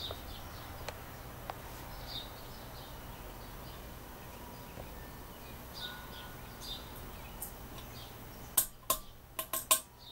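Vintage SMC Laguna ceiling fan running with a steady low hum, birds chirping faintly in the background. Near the end comes a quick cluster of sharp clicks and rattles as the light kit's pull chain is worked and the globe light comes on.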